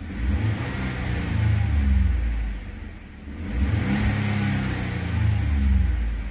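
Ford F-150's turbocharged engine revved twice in park, the revs rising to about 3,000 rpm and dropping back between, heard from inside the cab. It runs smoothly, with no skipping from the cylinder 6 misfire being traced.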